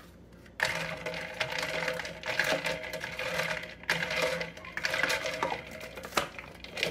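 Electrolyte drink being mixed in a 40-ounce tumbler: a steady rattling and clinking with a hum under it, starting about half a second in and dying down near the end.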